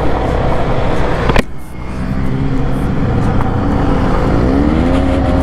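Motorcycle engine running under way, with wind noise on the microphone. About a second and a half in there is a sharp click and the engine note drops away briefly, then it comes back and rises in pitch toward the end as the bike accelerates.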